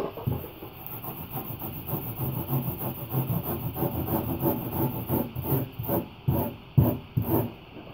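Metal hand rasp scraping blue foam board in quick repeated strokes, about three a second in the second half, each stroke a short rasping hiss as the foam is shaved down.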